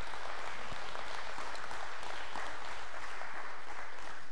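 Congregation applauding, a steady clapping at an even level.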